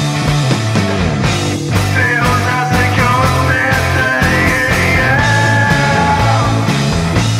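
Background rock music with a steady beat, low bass notes and a higher melodic line.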